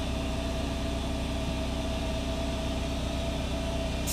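Steady hum of an idling Fadal CNC vertical machining center, a constant mid-pitched tone over a low drone.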